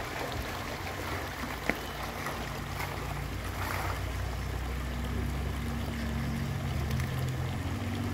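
Shallow muddy pond water sloshing and splashing as a hand net is worked through it, with one sharp knock early on. About halfway through, a low steady hum comes in and grows louder.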